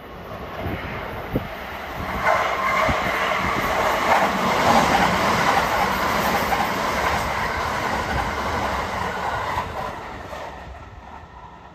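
Kintetsu 5800 series and 1201 series electric train, coupled, passing through the station at speed without stopping. The noise of its wheels on the rails swells about two seconds in and fades away near the end.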